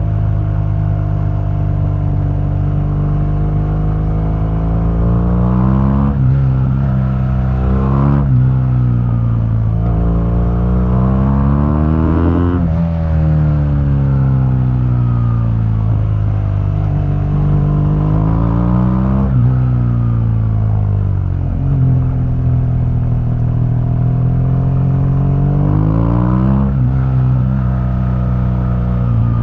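2015 BMW R1200GS liquid-cooled boxer twin running through its stock exhaust while riding. The engine note climbs and then drops sharply several times as gears are changed, with one long, slow fall in pitch in the middle as the bike slows.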